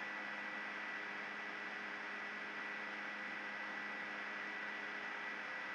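Steady electrical hum and hiss of the recording's background noise, with a faint high steady whine; nothing else happens.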